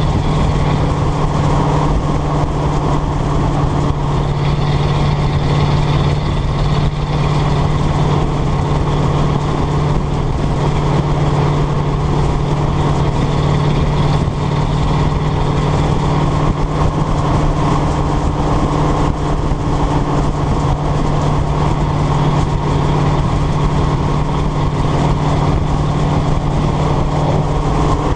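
1995 Ford F150's 302 V8 exhaust droning steadily as the truck cruises at an even speed, picked up close to the exhaust by a camera mounted low on the truck's side.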